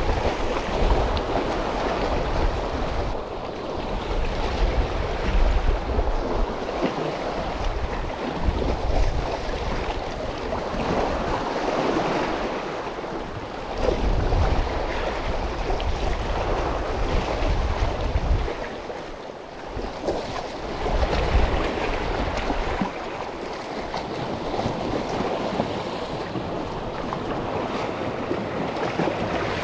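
Sea waves washing and splashing around concrete tetrapod blocks, swelling and ebbing, with wind gusting on the microphone.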